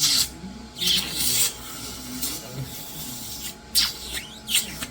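Airway-clearance equipment, a cough assist machine or suction, giving short, irregular hissing bursts of air: four or five in all, the strongest at the start, about a second in, and near the end.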